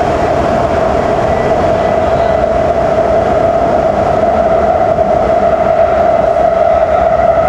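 Shenzhen Metro Line 14 train running at speed, heard from inside the car: a steady rumble with a constant mid-pitched tone over it, growing slightly louder toward the end.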